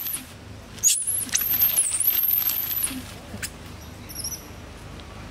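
A long-tailed macaque screaming in shrill, wavering squeals as another monkey grabs it: one scream fades out at the start, and a second, longer one follows about a second in and lasts about two seconds. Fainter high chirps come near the end.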